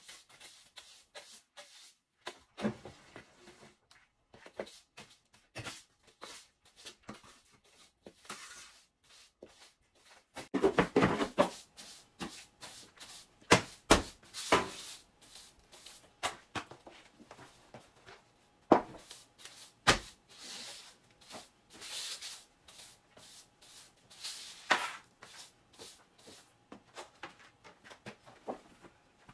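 Broom bristles sweeping a hard floor in irregular brushing strokes, with a few sharper knocks among them.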